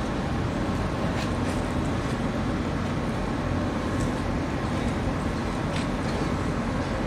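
Steady low rumble with a hiss over it: harbour background noise of distant engines and traffic carrying across the water, with a few faint ticks.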